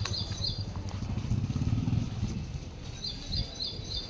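A low vehicle engine rumble that swells from about a second in and fades again, with a high chirp repeating about three times a second that comes back near the end.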